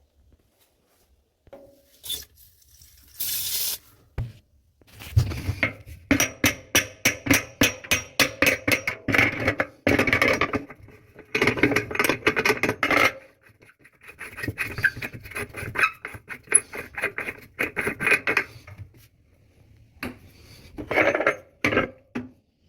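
Repeated scraping and rubbing strokes on hard parts, about five strokes a second, in several spells of a few seconds with short pauses between.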